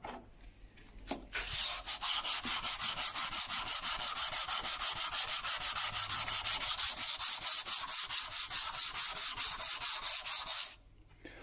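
A small wooden block rubbed back and forth by hand on a flat sheet of sandpaper in fast, even strokes, flattening its face. A few light handling knocks come first; the rubbing starts about a second and a half in and stops suddenly just before the end.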